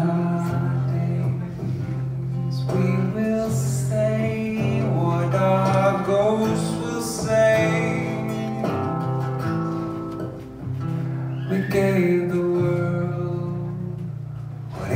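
Live song: a man singing over an acoustic guitar, with sustained low guitar notes under the vocal melody.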